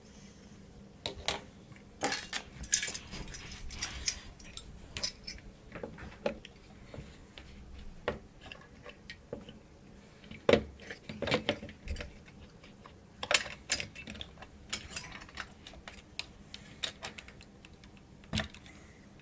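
Irregular sharp clicks, taps and rattles of hard plastic and metal as an AMD stock CPU cooler is handled and seated on the motherboard's socket, its clips hooked onto the retention bracket. The loudest clacks come about ten and a half, thirteen and a half and eighteen seconds in.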